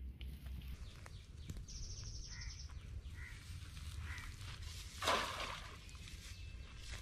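Outdoor creekside ambience: a low wind rumble on the microphone, a short high trill and a few faint bird chirps in the first half, and a brief loud rush of noise about five seconds in.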